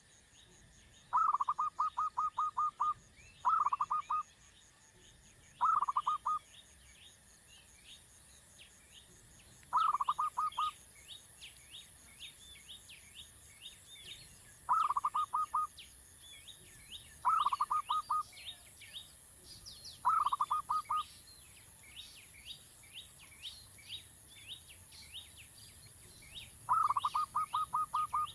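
Coucal chick calling in loud bursts of rapid rattling pulses, eight bursts, each under a second or so long. Beneath them runs a steady chorus of fainter, higher chirping insects.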